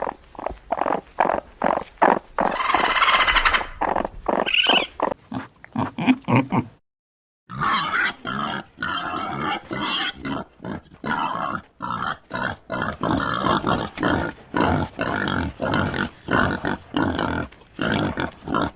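An animal making short, quick calls, about two or three a second, with one longer, louder call a few seconds in and a brief silent gap about seven seconds in.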